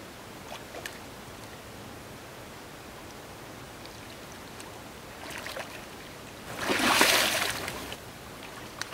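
Water splashing in shallow lake water: a small splash about five seconds in, then a louder, longer splash lasting about a second, with a few faint clicks near the start and end.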